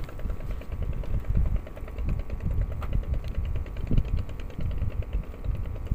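Wind buffeting the microphone in an uneven low rumble, over a steady, fast mechanical ticking like a small engine running.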